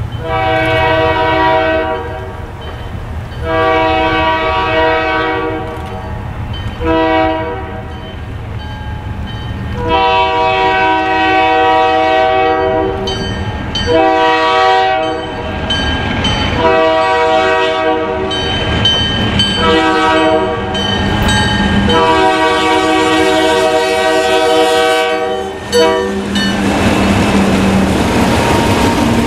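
Diesel freight locomotive horn sounding for a grade crossing: two long blasts, a short one and a long one, then several more blasts as it nears. Near the end the locomotive passes close by with engine and wheel rumble, followed by its hopper cars.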